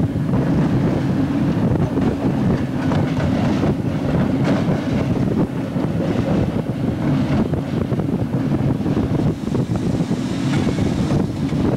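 Train running, heard from the front of the moving train: a steady rumble with wind buffeting the microphone and a few clacks from the wheels over track joints and switches.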